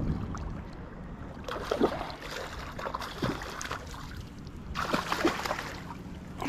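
Water splashing and churning in two bursts, about a second and a half in and again near the end, as a hooked salmon thrashes at the surface right at the shore. A low rumble runs underneath.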